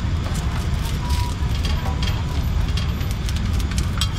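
Busy street-market ambience: a steady low rumble under faint background voices, with a few sharp clinks near the end.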